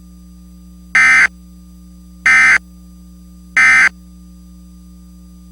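Emergency Alert System end-of-message code: three short bursts of digital data tone, a little over a second apart, closing the tornado warning broadcast.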